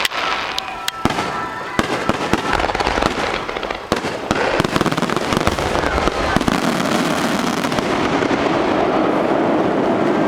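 Fireworks going off: many sharp bangs and crackles, thickening in the second half into a dense, continuous crackling rush.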